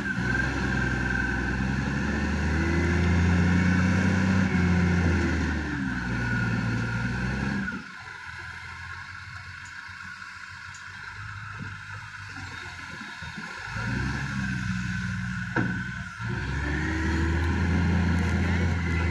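Heavy diesel engine revving up and down under load. About eight seconds in it drops back to a quieter idle, then revs up again near the end.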